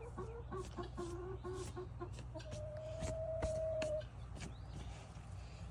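Hens clucking: a quick run of short low clucks, about four a second, then one long steady higher note. A few sharp knocks come in the middle.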